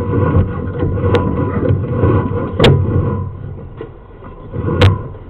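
Sewer inspection camera head and push cable dragging and scraping through a lateral pipe as it is pulled out, with three sharp knocks against the pipe. The rumble dies down about three seconds in, and the loudest knock comes near the end.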